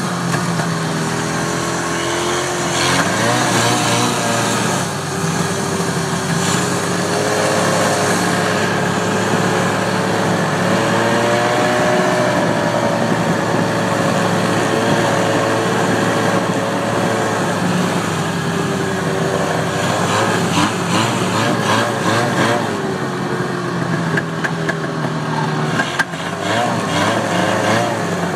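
Vintage snowmobile engine running as the sled travels, its pitch rising and falling with the throttle, then settling to a steadier note near the end.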